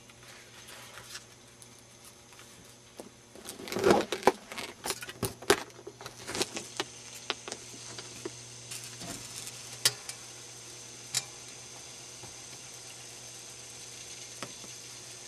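Foam sheet being pushed and handled on a wooden work surface: a run of crackles, scrapes and sharp clicks from about three to seven seconds in, then a few scattered clicks, over a steady low hum.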